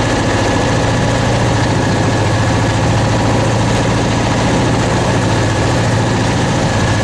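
A fishing boat's engine running steadily, heard on board as a constant low hum with a rushing noise of wind and sea over it.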